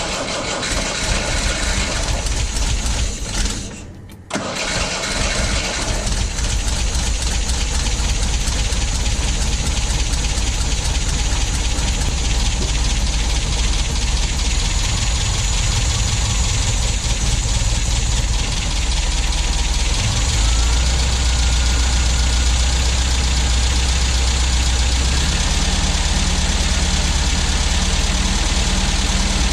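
MGB's 1.8-litre B-series four-cylinder engine idling steadily while the cooling system is burped. The newly fitted water pump runs quiet, with none of the old pump's rattle. The sound dips briefly about four seconds in.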